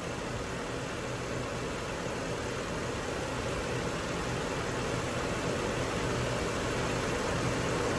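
Hyundai 4.6-litre V8 engine idling steadily, heard from under the open hood.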